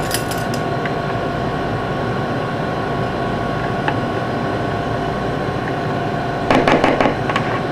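Steady hum of kitchen machinery with a few faint whining tones above it, and a brief clatter about six and a half seconds in.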